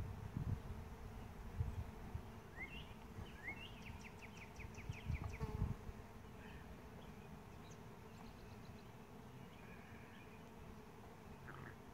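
Honeybees buzzing faintly around the hive, with a few rising bird chirps and a quick bird trill about four seconds in. Low rumbles come and go in the first half.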